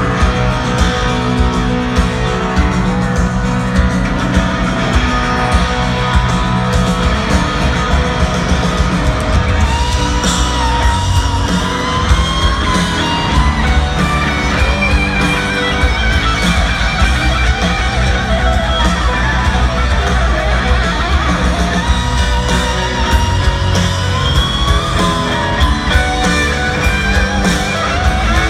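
Live rock band playing a power ballad, heard from the crowd in a stadium: a Les Paul electric guitar takes a bending, singing lead solo over piano, bass and drums.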